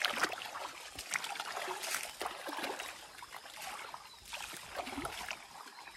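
Shallow river water splashing and sloshing in irregular small splashes as people wade through it and work their hands in the water along the muddy bank.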